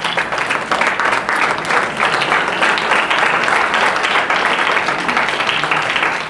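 A crowd clapping, a dense, steady patter of many hands.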